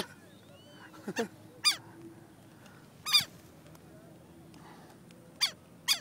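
Adult southern lapwing giving about five sharp, strident calls, each falling steeply in pitch, spaced out with the last two close together near the end: the parent's alarm calls while its chick is handled.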